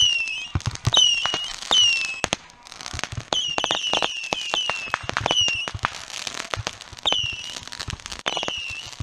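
Fireworks going off in rapid, irregular succession: sharp pops and cracks, many of them followed by a short whistle that drops in pitch, as roman-candle-type shots are fired from a handheld launcher and incoming.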